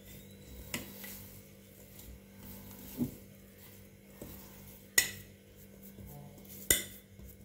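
A hand mixing and pressing stiff, overnight-soaked adhirasam dough of rice flour and jaggery syrup in a stainless steel bowl, with four sharp clinks against the steel bowl spread through.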